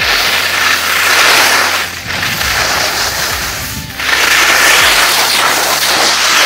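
Rossignol Pursuit skis scraping and hissing over hard-packed snow through linked turns. The noise comes in three long swells, dipping briefly about two and four seconds in as the skis change edges.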